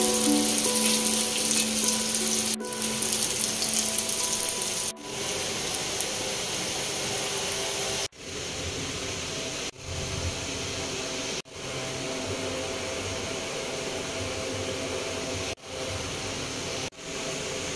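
Small potatoes frying in hot oil in a steel wok, a steady sizzle that breaks off for an instant several times.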